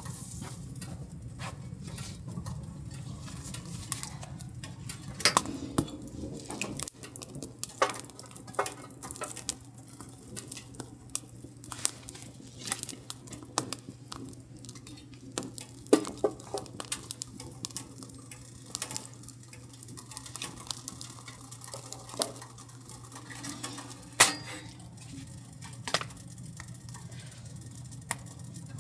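Wood fire in a small steel wood stove crackling, with irregular sharp snaps and pops over a low steady hum. Around the middle, metal clinks as the stove door is opened and a split log is fed in.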